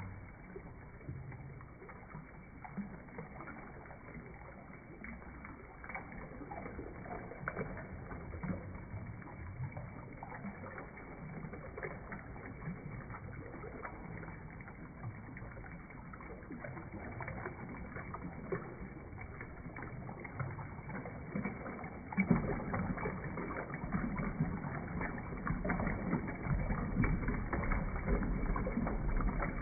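Toilet flushing, water rushing and gurgling, low-pitched and muffled. It builds gradually, then gets suddenly louder about twenty-two seconds in.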